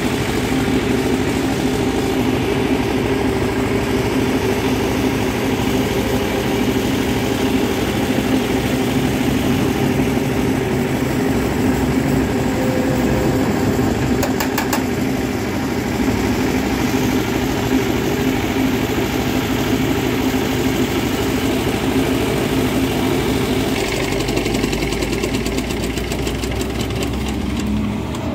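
An engine running steadily at idle, a constant low drone.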